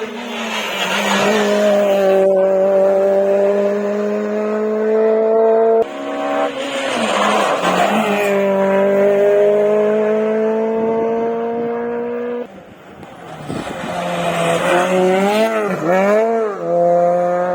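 Rally car engines running hard at high revs, the note climbing slowly as each car accelerates past. Three passes follow one another, each cut off suddenly. Near the end the engine pitch dips and rises several times in quick succession as the driver lifts and reapplies the throttle.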